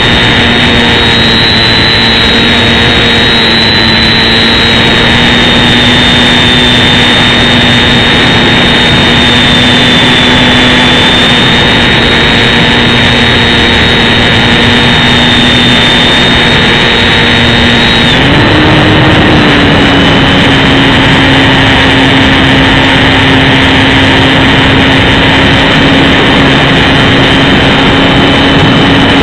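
Electric motor and propeller of an XK DHC-2 A600 RC plane, recorded up close by a camera on the plane: a loud, steady whine over a rushing noise. About two-thirds of the way through the pitch rises a little as the motor speeds up, then holds.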